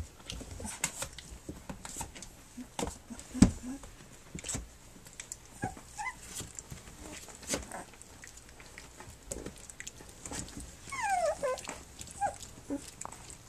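Three-week-old Standard Schnauzer puppies playing: scuffling and small knocks with a sharp thump about three seconds in, a few short squeaks, and a falling whine near the end.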